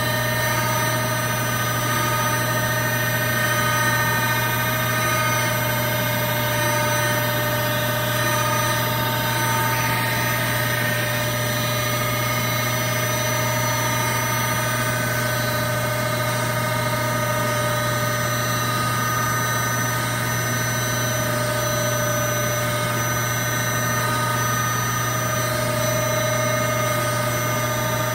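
Mori Seiki Duracenter 5 CNC vertical machining center running under power as its table traverses under the spindle: a steady mechanical hum with several high whining tones held throughout.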